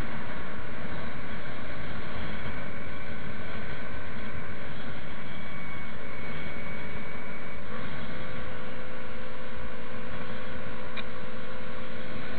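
Motorcycle running at a steady cruising speed, its engine holding an even pitch under constant wind noise; the engine note shifts slightly about eight seconds in.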